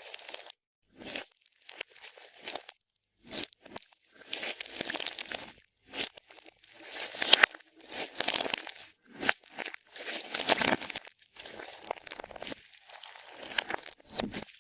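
Clear slime being kneaded and stretched, with irregular sticky crackling and popping in bursts. It gets louder in several longer stretches through the middle.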